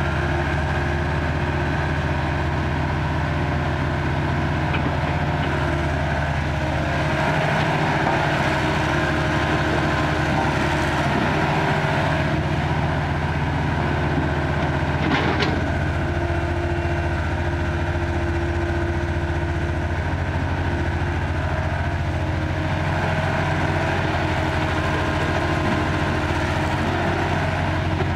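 Small Caterpillar excavator's diesel engine running steadily while it digs, with its note shifting a few times. There is a single sharp knock about halfway through.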